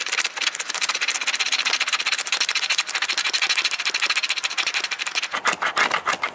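Rapid, steady scratching of a scratch-off panel on a cardboard treasure map, many strokes a second, stopping near the end.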